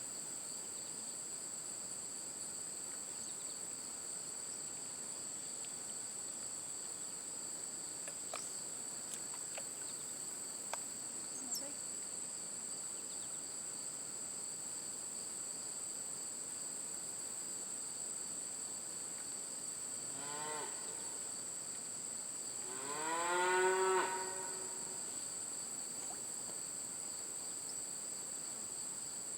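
A cow mooing twice: a faint, short call, then a louder, longer one a couple of seconds later that rises in pitch and then holds. Under it runs a steady high-pitched insect drone.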